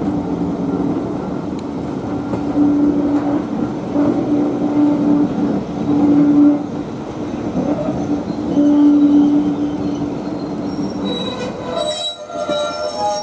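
Heritage train coaches running slowly on the rails, their wheels rumbling, with a low whining tone that comes and goes several times. Near the end the wheels break into a shrill, high-pitched squeal.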